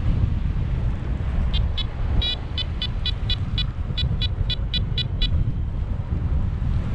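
Paragliding variometer beeping in quick short high-pitched pips, about four a second, from about a second and a half in until about five seconds in; beeps like these signal that the glider is climbing. Wind rushes over the microphone throughout.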